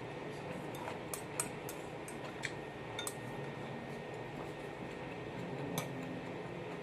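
Chopsticks clinking against a glazed ceramic bowl, a few sharp clinks clustered in the first three seconds and one more near the end, over a steady background hum.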